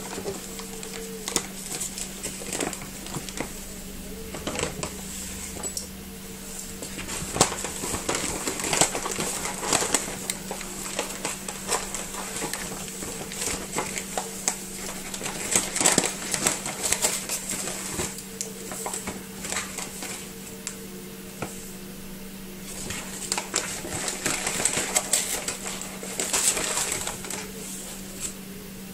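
Dry baking ingredients being handled over a stainless steel mixing bowl: irregular clinks and taps of utensils against the metal bowl, mixed with paper bags rustling, in busy stretches several seconds long.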